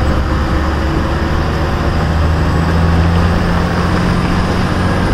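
Diesel truck engine running with a steady, low drone.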